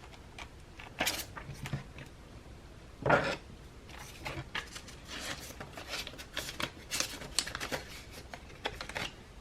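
Paper and packaging being handled: rustling, crinkling and light taps of paper envelopes and card, with a sharper rustle about three seconds in and a busy run of small crinkles and clicks in the second half.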